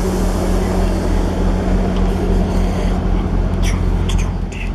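Class 158 diesel multiple unit standing at the platform with its underfloor diesel engines idling: a steady low drone with a constant hum. A few light clicks near the end.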